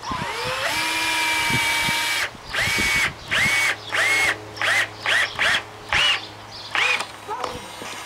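Cordless drill driving 3.5-inch deck screws into a 2x4 frame. It makes one run of about two seconds that rises in pitch as the motor spins up, then a quick string of about nine short trigger bursts.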